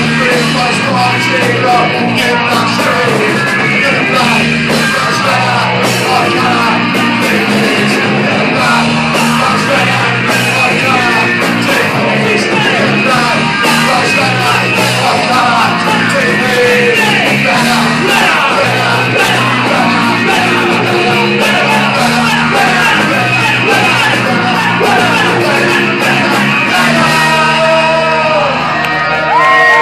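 Live rock band playing a song, with electric guitar, bass guitar, drums and a lead vocal into a microphone, heard from among the audience. The drums stop near the end.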